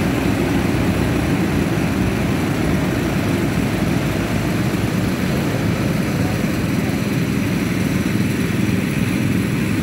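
Several go-kart engines running together in a steady drone as a queue of karts pulls away.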